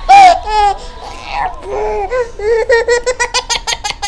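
Baby laughing: a loud squeal of laughter at the start, then a quick run of short rhythmic giggles in the second half.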